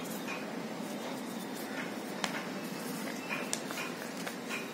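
A sheet of paper being handled and folded, giving a few short, crisp crackles over a steady background hiss.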